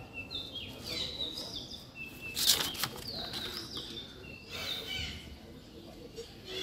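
Small birds chirping over and over in short, falling high notes, with two brief rustles, the louder about two and a half seconds in.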